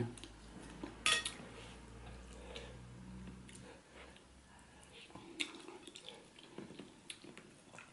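Close-up eating sounds: a spoon clinks on the plate about a second in, then soft wet smacks and clicks as boiled catfish head in pepper soup is picked apart by hand and chewed, with a low hum near the middle.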